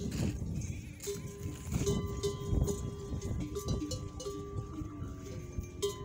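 Metal neck bells on camels clanking, ringing in short repeated strokes as the animals move, over a low rumble.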